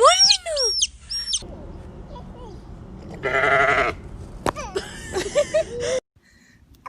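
A goat bleats once, about three seconds in, a short buzzy call. It follows a quick run of high chirping calls in the first second and a half.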